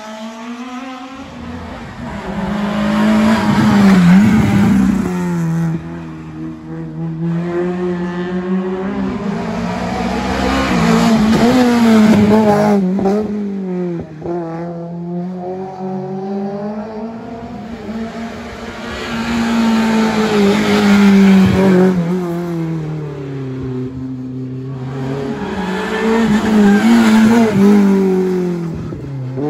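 Rally cars coming through a tarmac stage one after another, about four in turn: each engine revs hard, its pitch climbing under throttle and dropping sharply through braking and gear changes, and gets loud as the car nears and passes.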